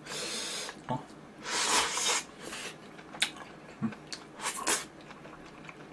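A person eating instant noodles: two long airy slurps, then chewing with a few small clicks and smacks.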